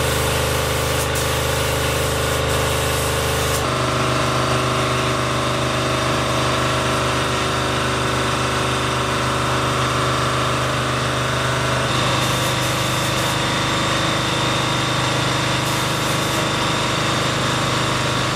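Steady mechanical hum of a paint-spraying rig running while a hose-fed spray gun coats a metal garbage container. The hum changes pitch abruptly about 4 seconds in and again about 12 seconds in.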